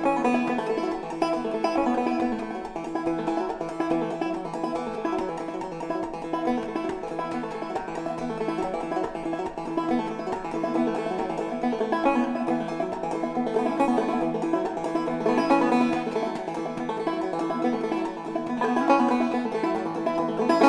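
Instrumental banjo music in an old-time style, without singing.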